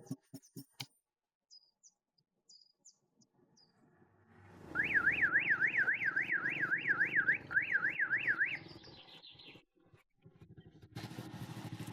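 Electronic alarm sounding a fast warbling tone that sweeps up and down about three times a second for roughly four seconds, starting about halfway through, over a low rumble.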